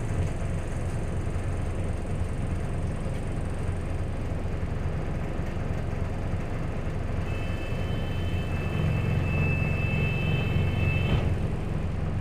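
Single-deck bus running on the road, heard from inside the passenger cabin: a steady low drone of engine and drivetrain. A high thin whine joins for about four seconds past the middle.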